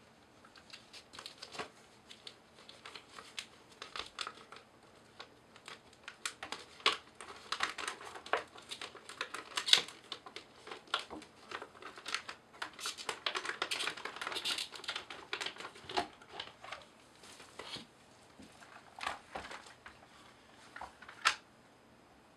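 Keyboard packaging being unwrapped: plastic wrapping crinkling and rustling in irregular bursts, with sharp clicks and taps mixed in. It is busiest in the middle and thins out towards the end, where one sharp click stands out.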